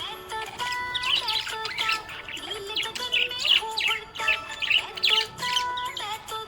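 Budgerigars chirping and warbling in quick, busy runs of high notes, over background music with a held, stepping melody.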